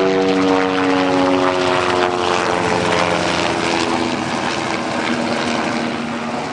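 Helicopter passing overhead, its engine and rotor drone sliding down in pitch over the first few seconds as it goes by.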